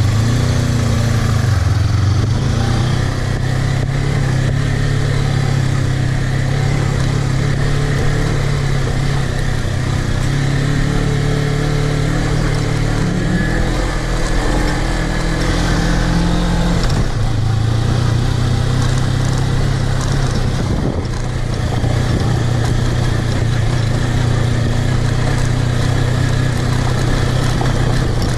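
Suzuki V-Strom 250's parallel-twin engine running as the motorcycle rides a dirt track, its pitch rising a little midway and dipping briefly twice in the second half as the throttle is eased.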